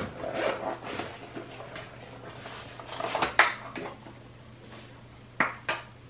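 Small objects being handled and set down on a hard surface: irregular rustling and clatter, a sharp knock about three and a half seconds in, and two sharp clicks near the end.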